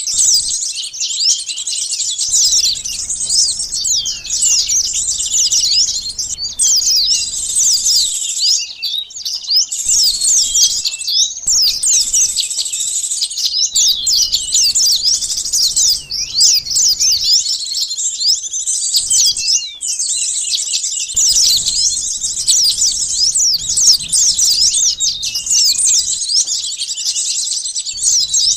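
A dense chorus of many small birds, flowerpeckers and sunbirds, giving rapid, high, thin chirps and twitters that overlap almost without a break. It is a bird-luring recording meant to draw in wild small birds.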